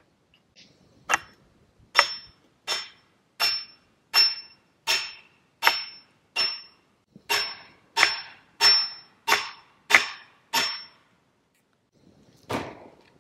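Steady hammering: about fourteen sharp strikes at roughly one and a half a second, each with a brief ringing tone, then one duller knock near the end.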